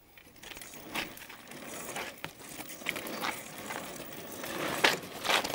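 Tyre of a homemade electric monowheel rolling over broken, gritty tarmac: a steady crunching hiss with scattered clicks and knocks, getting somewhat louder towards the end.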